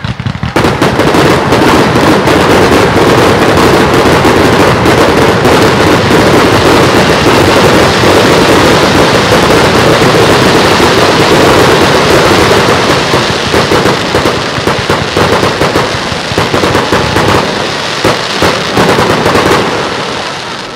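Aerial fireworks going off in a dense, loud, continuous barrage of bangs and crackling, starting about half a second in. It thins out into separate cracks in the last third and dies away near the end.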